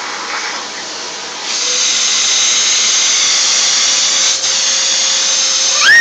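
Household vacuum cleaner running with a steady whirring hiss; about a second and a half in it gets louder and brighter, as if the airflow through the nozzle changes. Right at the end a baby's short cry cuts in.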